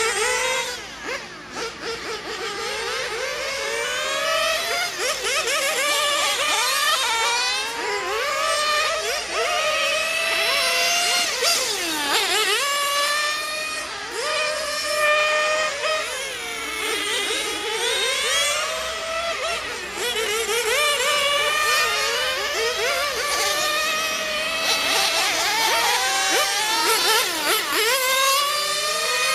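Several radio-controlled on-road model cars lapping a track, their high-pitched motors rising and falling in pitch again and again as they speed up and brake, several at once.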